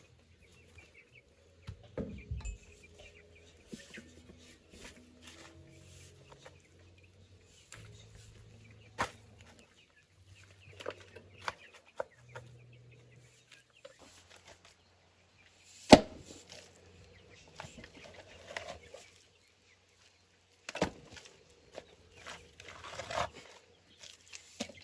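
Chickens clucking, with scattered knocks and thumps of work going on. A sharp bang about 16 seconds in is the loudest sound, and another comes about 21 seconds in.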